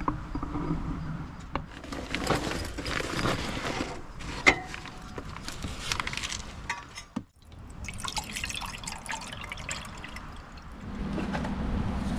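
Water being poured and splashing into a container, with small handling clicks and a knock about four and a half seconds in.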